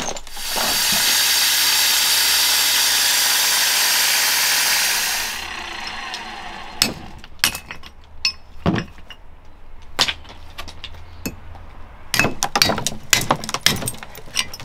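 Angle grinder cutting into a block of black marble for about five seconds, then stopping. After it come separate hammer-on-chisel strikes against the stone, irregular at first and coming faster near the end.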